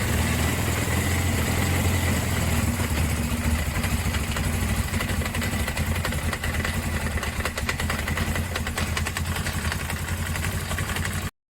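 Suzuki GS500 parallel-twin engine idling with a rapid clattering knock, plainer in the second half. The noise is the sign of a loose generator rotor (flywheel) whose retaining bolts have broken. The sound cuts off abruptly near the end.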